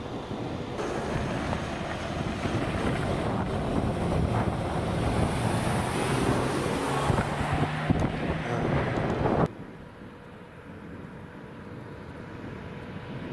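Heavy wind buffeting on the microphone over a car's engine and tyre noise as a camouflaged Mercedes ML Coupe prototype moves past, with a low engine drone near the end. The sound drops abruptly about nine and a half seconds in to quieter, steady road noise.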